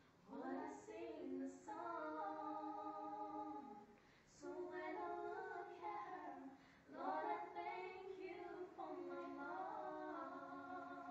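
Two girls singing a song together unaccompanied, in sung phrases with short breaks about four and seven seconds in.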